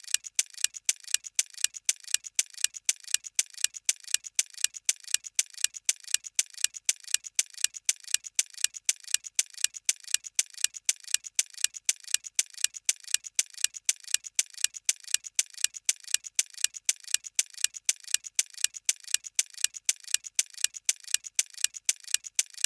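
Ticking clock sound effect used as a quiz countdown timer: crisp, evenly spaced ticks, several a second, starting abruptly out of silence.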